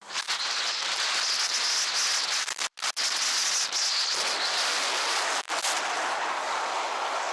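Steady rushing wind and road noise on a motorcycle-mounted camera at speed, with a few brief cut-outs in the sound.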